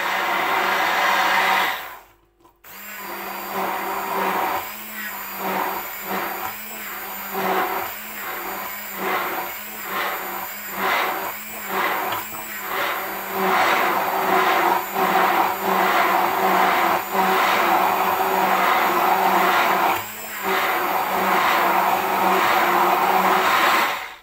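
Braun immersion hand blender running in a beaker of egg, lemon and sunflower oil, emulsifying it into mayonnaise. It stops briefly about two seconds in, then runs again with its level rising and falling quickly for several seconds before settling steadier, and stops at the end.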